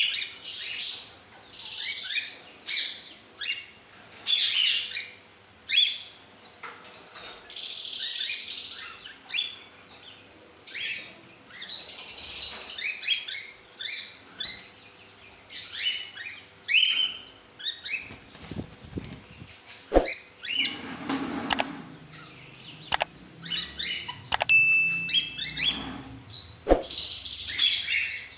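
A flock of cockatiels chirping and screeching, with short harsh calls following one another about every second. In a lull later on, the calls thin out and a few sharp knocks stand out.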